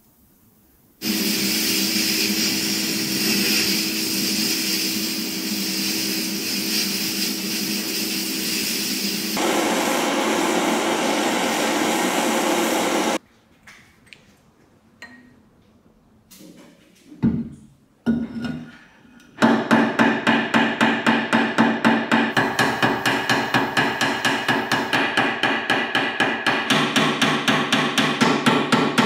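A steady, loud machine noise for about twelve seconds that changes partway and cuts off suddenly, then a few faint clinks. From there to the end, a small hammer taps rapidly, about four strikes a second, peening a pin in the handle bracket of a cast-iron iron held on an anvil.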